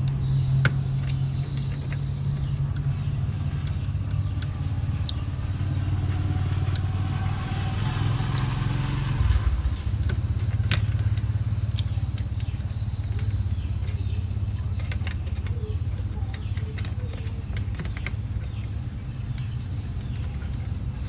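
A steady low mechanical drone that shifts in pitch about nine seconds in, with scattered small clicks and rustles as hands handle cables and plastic parts inside an opened laptop.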